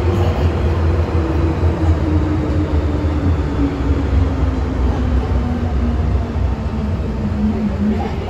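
Inside a Hong Kong MTR M-train metro car on the move: a steady low rumble from the running gear, with a traction-motor whine that falls steadily in pitch as the train slows down.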